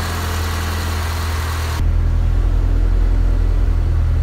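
Freshly swapped JDM Honda D16A four-cylinder idling steadily after its first start. About two seconds in, the sound turns duller and deeper, heard from inside the car's cabin.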